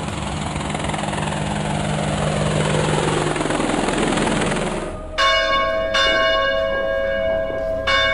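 A steady rushing drone with a slowly falling sweep stops abruptly about five seconds in. A church bell then rings out, struck three times, each strike ringing on with several steady tones.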